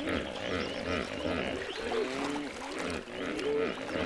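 Chorus of frogs calling over water: many overlapping short croaks that rise and fall in pitch, repeating several times a second, with rapid trilling calls above them.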